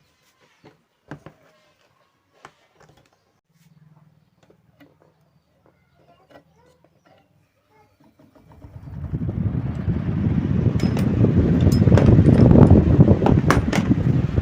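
A few light clicks and handling knocks, then about eight seconds in an electric table fan is switched on and spins up, its rushing air building quickly and then holding steady and loud.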